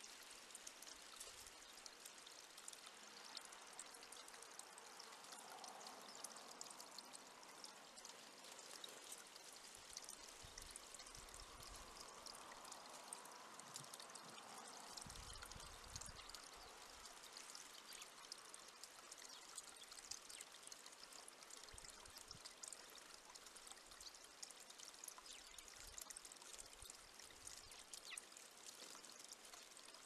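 Faint steady hiss with many tiny ticks, and a blue tit bathing in a shallow stone bird bath, splashing the water about halfway through.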